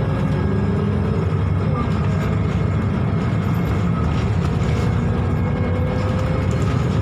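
Steady drone of a Scania K280UB bus's 9.3-litre five-cylinder engine heard from inside the bus, with thin steady whining tones over it. The owner takes this weird noise for the engine's cooling fan spinning extra fast because the engine is overheating.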